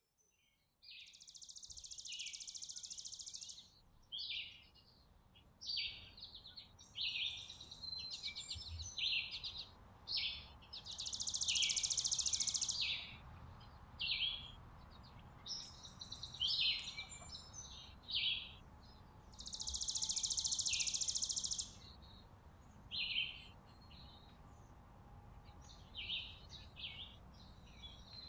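Small songbirds chirping and calling at a porch seed feeder: many short high chirps, with three long, rapid trills of about two seconds each near the start, about a third of the way in and about two-thirds of the way in. A faint low rumble runs underneath.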